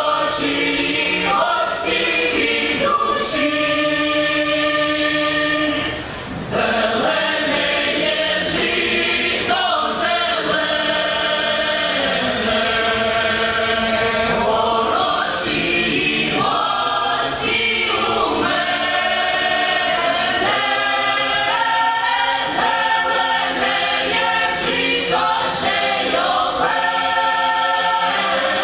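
Ukrainian folk ensemble's choir singing a folk song in harmony through a stage sound system, with a brief drop in loudness about six seconds in.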